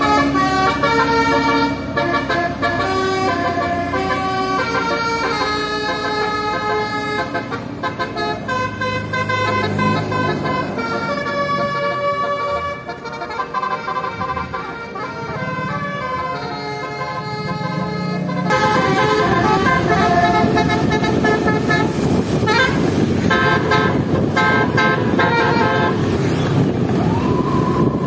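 A bus's multi-tone melody horn plays a run of changing notes. About two-thirds of the way through, a louder rush of engine and road noise takes over, with a few more horn notes near the end.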